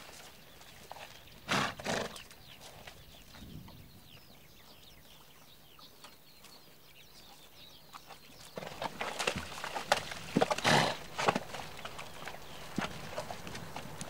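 Przewalski's horses drinking at a waterhole: two short loud blows about a second and a half in, then from about halfway through a busier run of hoof clatter and splashing in the shallows, loudest about three quarters of the way in.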